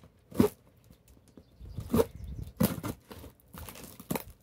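A cardboard box being cut open with a knife and handled: a string of sharp knocks and scrapes against the cardboard, the loudest about half a second in and another near the middle, with rustling between.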